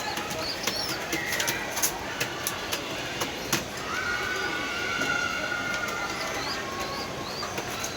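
Birds chirping in short high rising notes among quick sharp clicks and taps, with a steady whistle-like tone held for about three seconds from around four seconds in.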